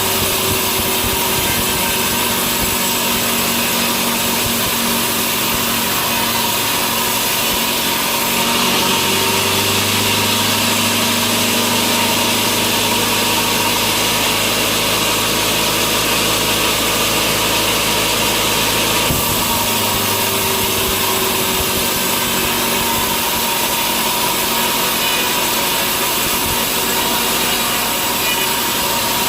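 Sawmill saw running steadily while cutting a log into slabs. For about ten seconds in the middle, starting about eight seconds in, the sound gets fuller and a little louder, with more hiss, then settles back.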